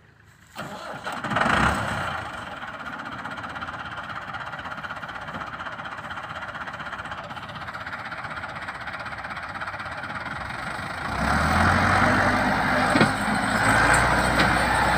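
Massey Ferguson 385 tractor's diesel engine running while hauling a trolley heavily loaded with grain sacks, working under load. The sound comes in suddenly about half a second in and grows louder and deeper about eleven seconds in.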